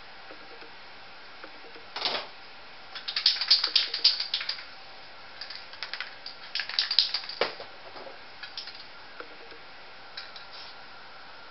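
Two bursts of rapid, sharp clicking and scraping from spray-paint art work on the painting, with a single sharp knock just before them and a few light ticks afterwards.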